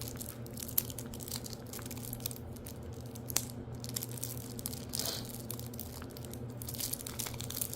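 Plastic wrapping crinkling and tearing as it is worked off a stack of trading cards, with scattered small clicks and rustles over a steady low hum.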